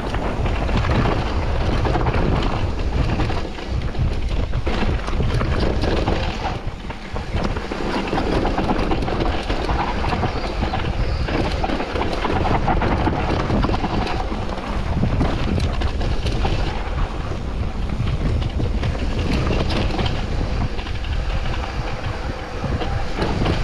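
Wind buffeting the microphone over the rattle and rumble of a mountain bike's tyres, frame and chain on a rough dirt trail during a fast downhill run.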